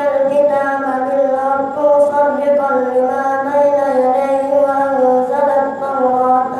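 A boy's voice chanting Quranic recitation as imam leading congregational prayer, in long held notes that waver and slide gently in pitch without a break.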